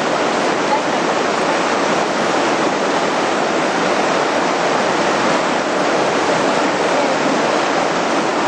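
Steady rushing noise of river whitewater rapids, an even, unbroken wash of churning water.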